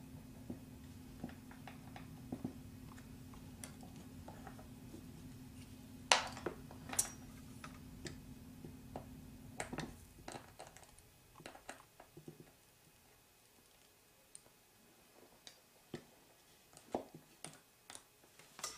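Scattered small clicks and taps of a soldered connector and tools being handled on a workbench, with a louder sharp click about six seconds in and another a second later. A steady low hum cuts out about ten seconds in.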